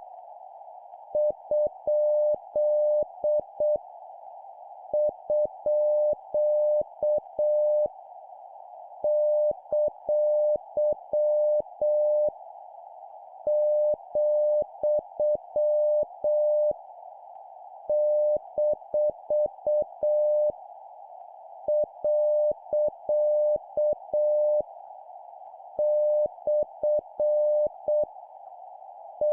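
A Morse code practice tone at 7 words per minute, a single mid-pitched beep keyed on and off in dits and dahs over a steady band of hiss. It sends one punctuation mark at a time: each character is a run of dits and dahs about three seconds long, followed by a pause of about a second.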